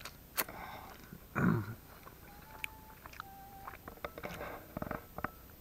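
A metal fork clinking and scraping in a stainless steel camping pot as someone eats from it, a series of small clicks with a few brief squeaks. A sharp click comes near the start and a short voiced sound about a second and a half in.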